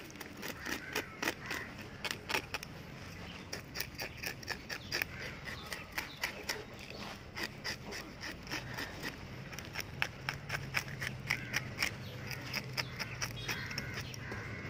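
A knife scraping the scales off a freshly caught fish: a run of quick, uneven rasping strokes, several a second.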